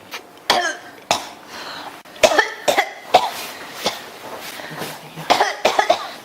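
A person coughing again and again in short, sharp bursts, a coughing fit that won't stop, with a quick run of coughs close together near the end.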